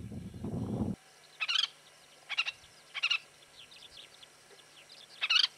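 Pratincoles calling: four short, sharp, harsh calls spread over a few seconds, with fainter chirps between them. Wind rumble on the microphone in the first second stops abruptly.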